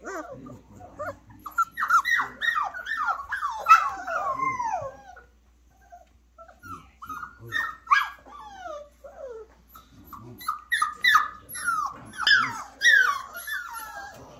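Four-week-old flat-coated retriever puppies whining and yelping in runs of short, high cries that fall in pitch, with a brief lull in the middle; restless cries of puppies trying to settle down to sleep.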